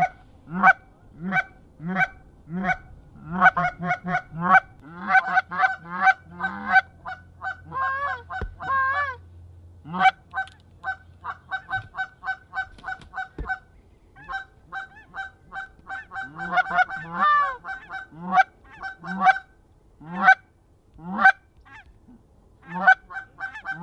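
Geese honking: short, loud calls repeated in quick runs of about two to four a second, broken by brief pauses.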